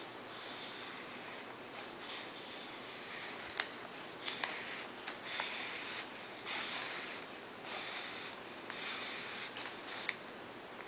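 Felt-tip marker scratching along a strip of paper in a series of strokes of about a second each, with a few sharp clicks in between.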